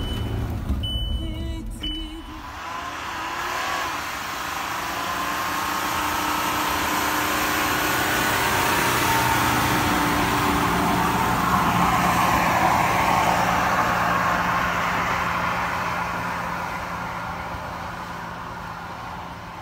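Volkswagen Amarok V6 diesel pickup driving past on a snowy road, its engine and tyres growing louder to a peak about twelve seconds in, then fading steadily as it drives away.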